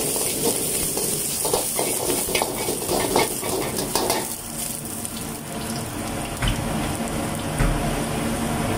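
Curry leaves and red chilli sizzling in a little hot oil in a wok, a metal ladle scraping and stirring through them during the first four seconds. The sizzle carries on steadily after the stirring stops, with two dull thumps in the second half.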